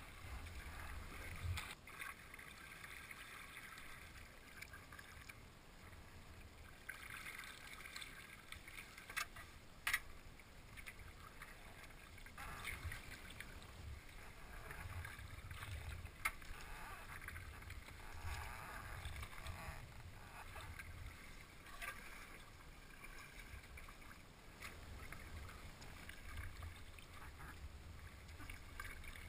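Kayak paddle strokes dipping and splashing in calm water, a stroke every few seconds, with a few sharp knocks.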